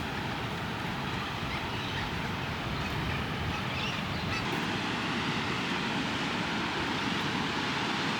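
Steady rushing of ocean surf breaking on the beach.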